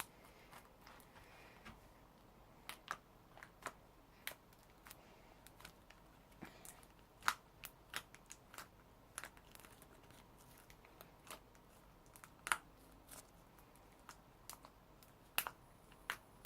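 Glittery slime being poked and pressed by fingers, giving faint, irregular little clicks and pops.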